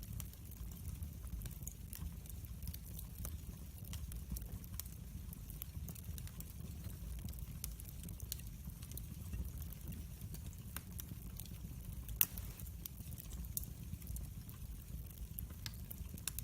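Log fire in a fireplace crackling, with many small scattered pops over a steady low rumble and one louder pop about twelve seconds in.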